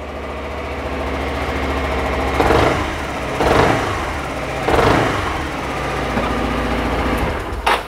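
Suzuki Burgman 400's single-cylinder four-stroke engine idling at the exhaust, with the throttle blipped three times in quick succession, each rev rising and falling back to idle. A short click comes near the end.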